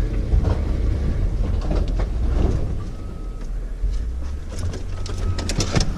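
Chevrolet Silverado 1500 pickup's V6 engine running low as the truck pulls forward, with scattered knocks. From about halfway in, a high beep repeats about once a second, a back-up alarm.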